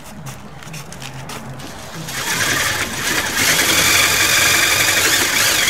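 Cordless drill driving a sharp-point screw through a door trim into an 18-gauge steel frame. The motor runs steadily under load with a constant whine, starting about two seconds in.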